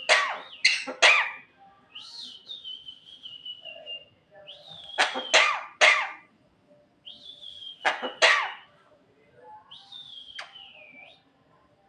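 Javan myna mimicking coughing: groups of two or three sharp coughs alternating with a high whistle that slides down in pitch, repeated several times.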